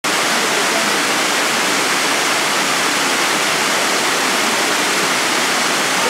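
Water rushing steadily over a small cascade of travertine steps, a constant broad wash of falling water.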